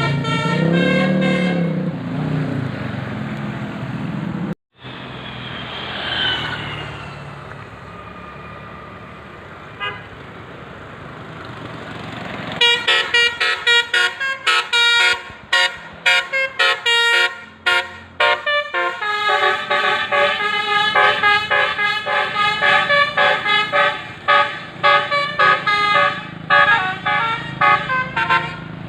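Bus 'telolet basuri' musical horns: a held horn chord at the start, then from about halfway a fast tune of many short, clipped horn notes.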